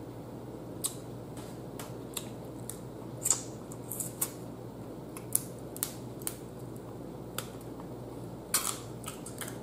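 Close-miked eating of boiled blue crab: irregular sharp clicks and smacks from picking at the shells and chewing, over a steady low hum.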